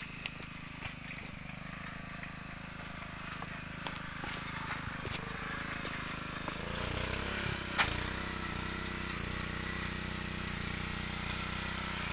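Honda F300 tiller's small engine running steadily, louder from about six and a half seconds in, with one sharp click near eight seconds.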